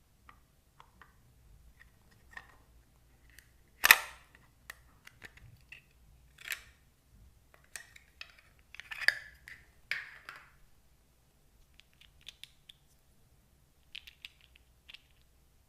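Slime being mixed by hand: scattered clicks and crackly pops, with one sharp click about four seconds in and louder bursts of crackling a few seconds later.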